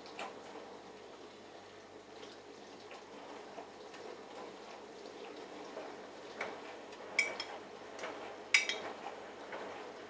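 Bosch Logixx WAS32461 front-loading washing machine tumbling its drum in the prewash: water sloshing, with a few sharp clinks, the loudest two about seven and eight and a half seconds in.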